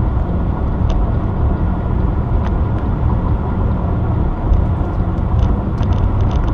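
Steady road noise of a car driving at highway speed, heard from inside the cabin: a constant low tyre and engine rumble.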